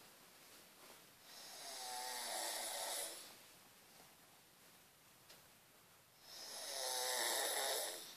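A woman snoring in her sleep: two long snores about five seconds apart. Each swells over about two seconds into a breathy, buzzing rasp, then drops away.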